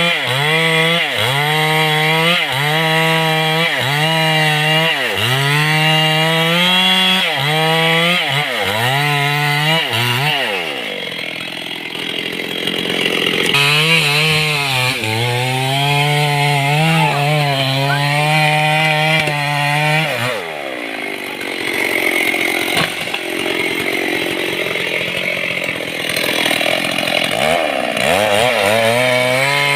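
Stihl chainsaw running at high revs while cutting mahogany, its pitch dipping and recovering about once a second as the chain loads up in the wood. Twice the steady engine note gives way for several seconds to a rougher, less even sound.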